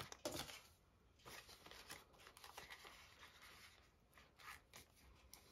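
Faint rustling and crinkling of paper banknotes and a clear plastic envelope as cash is slid into a binder pouch.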